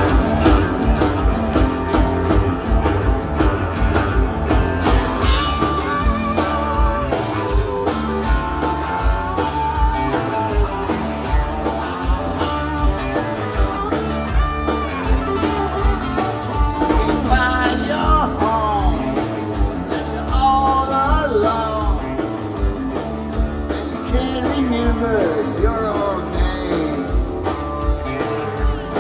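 Live rock band playing an instrumental intro: a steady drum beat with bass and electric guitars, and a lead guitar bending notes in the second half.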